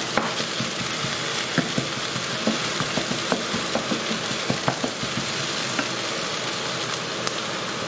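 Food sizzling as it fries in oil in a non-stick wok, with a steady hiss, while a wooden spatula scrapes and taps against the pan as it is stirred, giving scattered sharp clicks.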